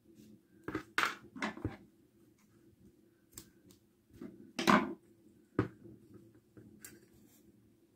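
Soft handling noises from a stuffed crocheted cotton ball and a small terracotta pot: scattered rustles and light knocks, the loudest a little past halfway, as the ball is pressed into the pot.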